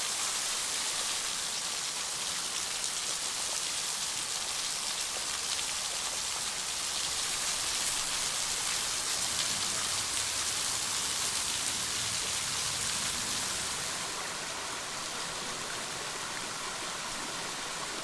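A thin, low-flow waterfall trickling and splashing onto rock as a steady hiss of falling drops, like rain. It gets slightly quieter for the last few seconds.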